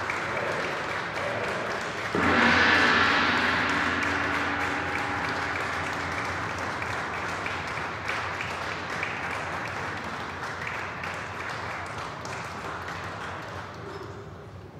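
Applause, then a large gong struck once about two seconds in. Its ring slowly fades while the clapping goes on.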